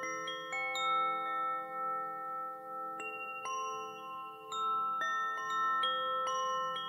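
Nada wind chimes ringing: clear tuned tones struck at irregular moments, a few strikes a second, each note ringing on and overlapping the next.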